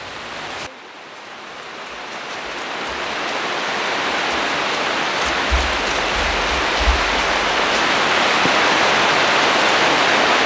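Rain on a greenhouse roof: a steady, even hiss that swells louder over the first few seconds, with a few dull low thumps around the middle.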